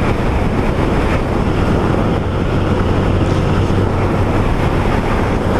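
Honda CB300 motorcycle riding at a steady speed: wind rushing over the microphone, with the single-cylinder engine's steady low hum underneath.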